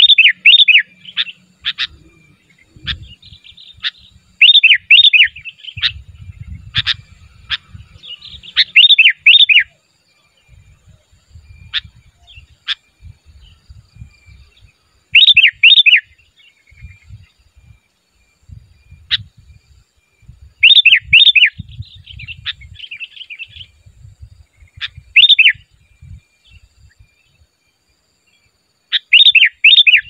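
Sooty-headed bulbul calling: loud bursts of three or four quick whistled notes, repeated every four to six seconds, with softer chatter and single sharp notes in between.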